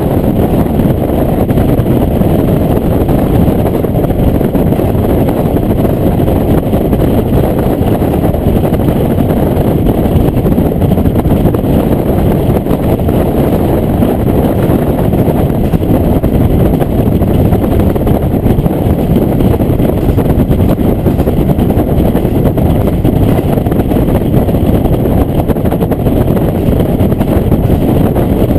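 Steady running noise heard inside a diesel railcar in motion: the engine and the wheels rolling on the rails, heavy in the low end and even throughout.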